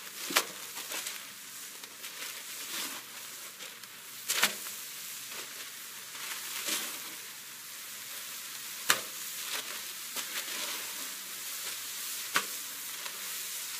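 Raw beef patties sizzling steadily on a hot Blackstone 36-inch flat-top griddle. Four sharp slaps, about four seconds apart, as each new patty is dropped onto the hot surface.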